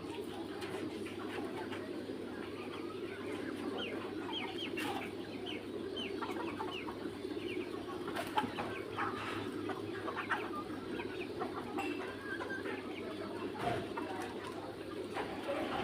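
A flock of three-month-old Mía chickens clucking with many short, scattered calls, over a steady low hum.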